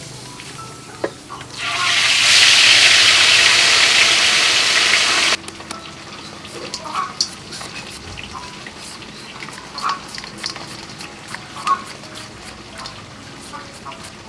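Food frying in hot oil in a pan, a loud steady sizzle for about four seconds that cuts off suddenly. Then a knife hacking and shaving strips off a green mango into a steel bowl: a run of light, irregular clicks and taps.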